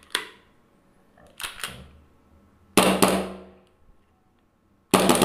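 Hi-capa gas blowback airsoft pistol being fired: a softer pop about a second and a half in, then two loud shots about three and five seconds in, each a sharp crack with the slide cycling and a short fading hiss of gas. The pistol is running low on gas.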